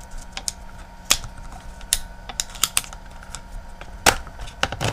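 Scattered light clicks and knocks of plastic and metal as a laptop hard drive is worked loose and pulled out of its bay, with two louder knocks about a second in and near the end.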